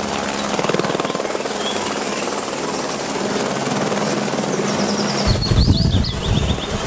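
Helicopter in flight close by: a fast, even beat of the rotor over a steady rushing noise, with a heavier low rumble coming in about five seconds in.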